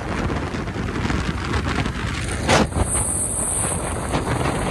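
Wind buffeting the microphone of a phone held out while riding a two-wheeler along a highway, a steady rush of wind and road noise. One louder gust about two and a half seconds in.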